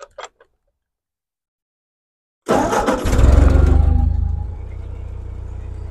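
After about two seconds of silence, a Ford 8N tractor's four-cylinder flathead engine starts abruptly, runs loud for about a second, then settles into a steady idle.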